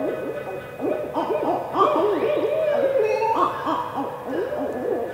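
A chorus of barred owls calling together: many overlapping rising-and-falling hoots, several a second, in a wild, monkey-like racket.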